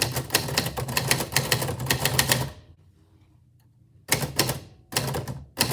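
Typewriter keys striking in a fast, dense run of clacks, then a pause of about a second and a half, followed by short bursts of typing.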